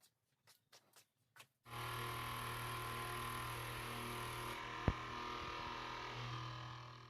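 Small 12-volt 775 DC motor running steadily with a hum and whir. It starts abruptly about a second and a half in after a few light clicks, gives a sharp click about five seconds in, and fades out near the end.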